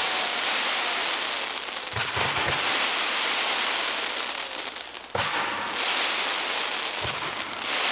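Ground-level pyrotechnic special effects going off in a dense crackling, hissing barrage, with a few sharp bangs about two, five and seven seconds in.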